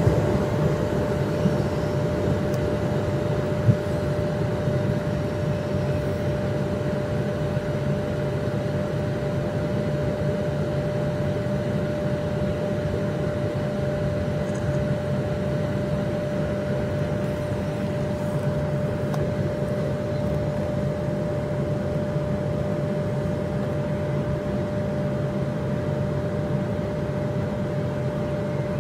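The departing high-speed train's sound dies away in the first moment, leaving a steady machine hum with one constant mid-pitched whine that does not change.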